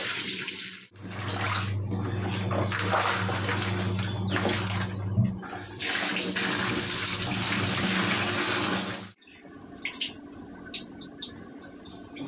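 Tap water pouring into a plastic bucket and splashing as school bags are rinsed and swished by hand, with a low hum under it for a few seconds. About nine seconds in it gives way to quieter water dripping from a hung-up wet bag onto tiles.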